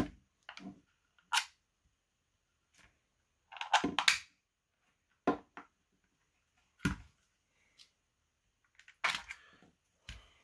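Clicks and knocks of a Byrna HD air pistol's polymer frame and small parts being handled and fitted together during reassembly. There are about half a dozen separate sharp clicks, two of them short clusters of quick knocks, with quiet gaps between.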